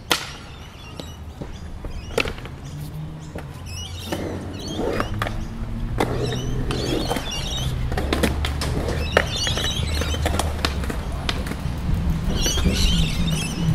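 Outdoor garden ambience: birds chirping in short clusters over a steady low rumble, with scattered sharp clicks and taps.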